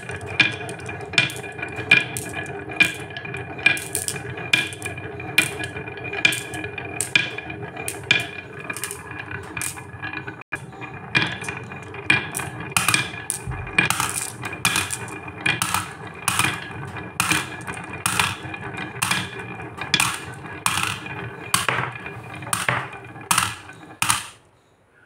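Glass marbles rolling one after another along a carved wooden wavy marble track: a steady rolling rumble with sharp clacks a little more than once a second as marbles strike each other and drop into a toy truck's bed. The sound stops near the end.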